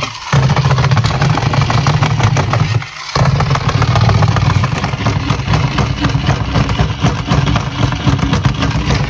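A battery-powered toy's motor running with a steady low drone, cutting out briefly at the start and again about three seconds in.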